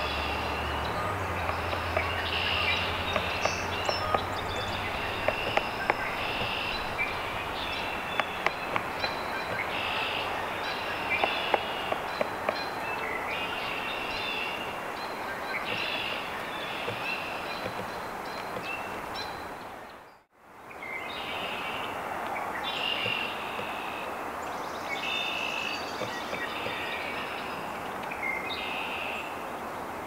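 Pileated woodpecker chipping at its nest cavity: irregular sharp knocks of bill on wood through the first half. Small birds sing short high phrases throughout over a steady outdoor hiss, and the sound drops out briefly about two-thirds of the way in.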